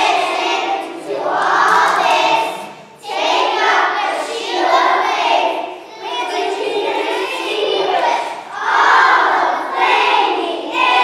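A group of young children singing together in unison, in phrases of a few seconds with short breaks between them.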